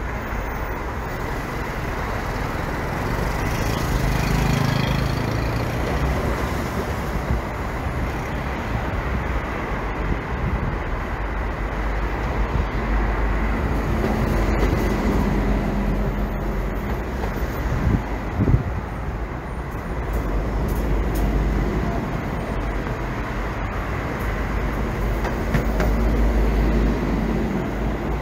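City street traffic: vehicles running past in a steady wash of road noise, with a short sharp knock about two-thirds of the way through.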